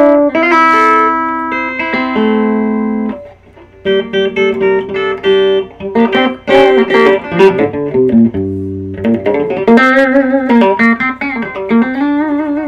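Epiphone Wilshire P90 Reissue electric guitar on its bridge P90 pickup, played clean straight into a 15-watt all-tube amp with reverb. A chord rings for about three seconds and stops, then after a brief pause picked chords and runs of notes follow.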